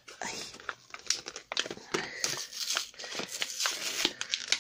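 Prismacolor Premier eraser blister pack being torn open by hand: the paper-and-card backing rips and peels while the plastic blister crinkles, in a run of irregular crackles and rustles.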